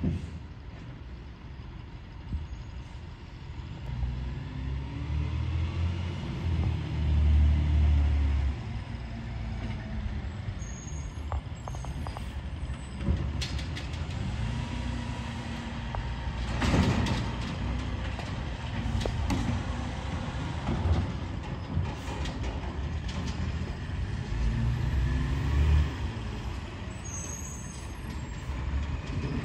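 Diesel garbage truck engine running and revving up and back down a few times as its hydraulic packer compacts a load of yard waste. There is a sharp burst of noise about halfway through.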